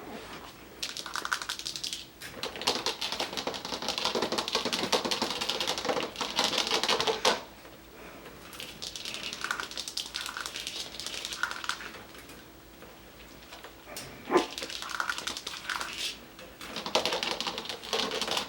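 Coton de Tulear puppies playing, with long runs of rapid clicking and scratching and a few short whimpers in between.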